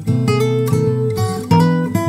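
Background music led by acoustic guitar, with a new chord struck about one and a half seconds in.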